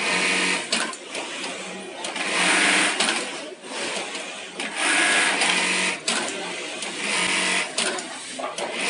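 Rixiong industrial bartack sewing machine tacking belt loops onto denim jeans. It runs in short stitching cycles of about a second, one roughly every two seconds, each a fast steady run of needle strokes, with quieter pauses between as the work is repositioned.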